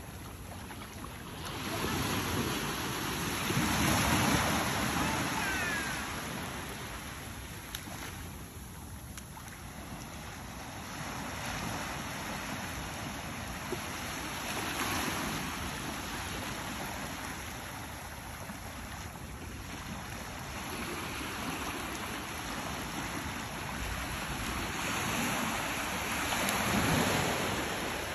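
Sea surf: waves breaking and washing up the beach, the rush swelling and fading every several seconds, loudest near the start and again near the end.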